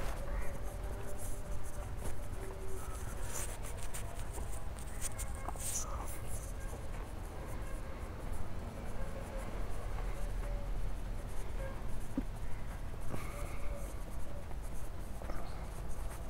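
Scratchy rustling and footsteps of someone walking with a handheld camera, over a steady low rumble.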